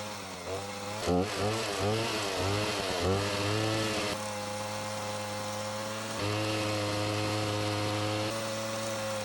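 Two-stroke chainsaw engine revving up and down in quick swells, then held at a steady high speed for several seconds, as in cutting a notch in a log.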